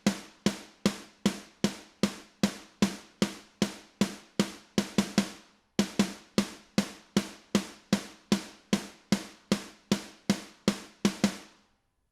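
Isolated snare drum track playing back: a steady run of evenly spaced snare hits, about two and a half a second, with a short break about five seconds in.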